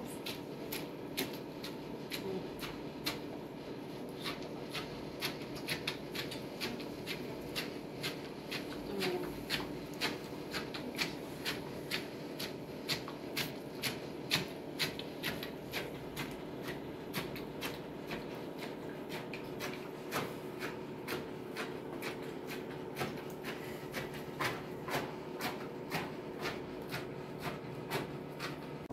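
Hands squeezing and stirring through a plastic basin full of pomegranate arils, crushing them to release the juice: an irregular run of small clicks and crackles, several a second.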